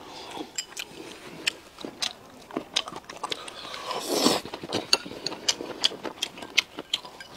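Close-up eating sounds: people chewing and biting food taken with chopsticks from porcelain bowls, with many light clicks and a louder bite about four seconds in.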